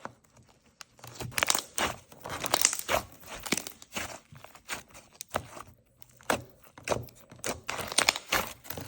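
Jelly slime squeezed and pressed by hand, giving an irregular run of crackly, squelchy pops that starts about a second in.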